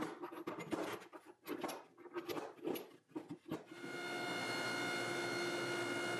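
Cut pieces of steel billet clink and knock against each other and the steel bench as they are stacked by hand. About four seconds in, a steady droning hum with several held pitches sets in.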